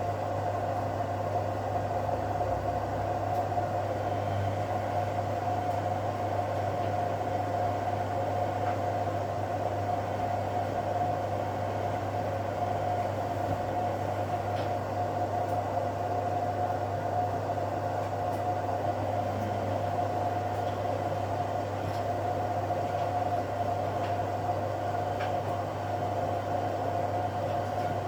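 Front-loading washing machines running in a wash programme: a steady hum with a constant mid-pitched tone, with a few faint ticks here and there.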